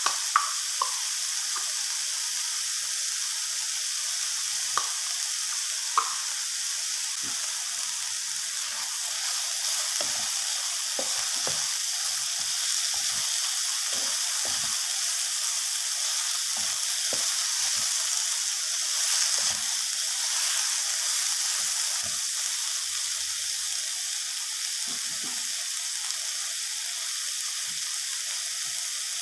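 Chopped onion, garlic, bird's-eye chillies and pounded dried shrimp sizzling steadily in oil in a non-stick wok, stirred and scraped with a wooden spatula. A few sharp clicks in the first six seconds.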